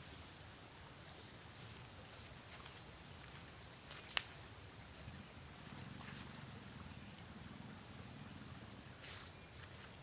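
Steady, high-pitched drone of insects, a continuous buzz that does not vary, with a single sharp click about four seconds in.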